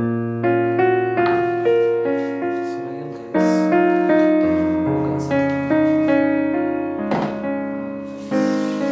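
Background solo piano music: a melody over chords, each note struck and then left to fade.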